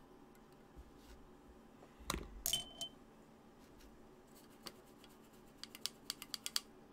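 Small hard makeup items, such as a palette, brush or compact, being handled. Two or three sharp clinks come about two seconds in, one with a brief ringing tone, and a quick run of light taps follows near the end.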